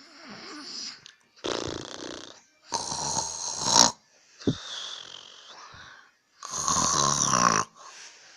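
A man snoring in his sleep: three loud snores with quieter breathing sounds between them.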